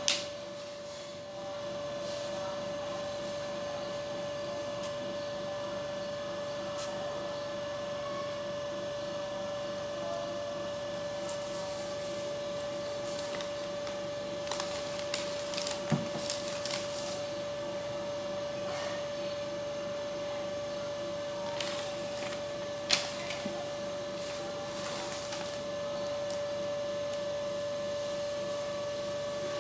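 Steady background hum with one constant unbroken tone. A few sharp clicks and light knocks come through, loudest right at the start and again about three-quarters of the way in, as the recording phone is handled.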